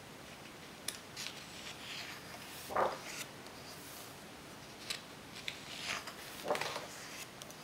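Paper pages of a large photo book turned by hand: two page turns, each a short papery swish, about three seconds in and again near the end, with lighter rustles of the paper handled between.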